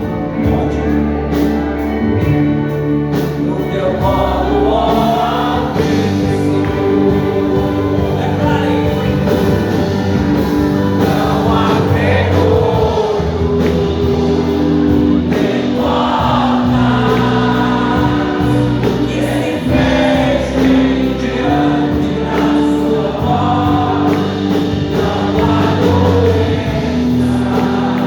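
Choir singing gospel music over instrumental accompaniment, with sustained held chords.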